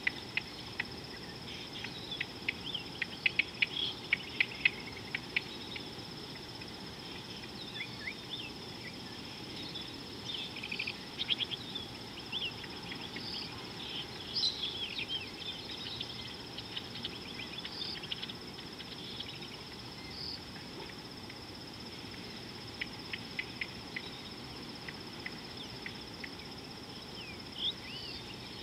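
Steady high-pitched trill of insects, with clusters of short bird chirps and whistles scattered over it, busiest at the start and around the middle.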